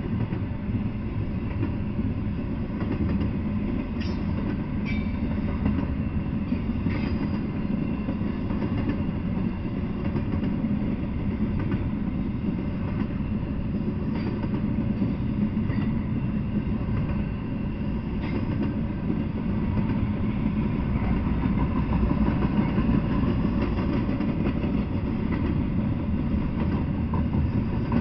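Intermodal freight train of container well cars rolling past: a steady low rumble of steel wheels on rail, with a few short high metallic squeaks.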